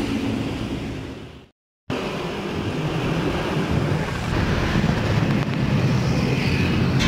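Wind rushing over the microphone with motorcycle engine and road noise while riding in traffic. The sound fades and cuts out completely about a second and a half in, then comes back steady.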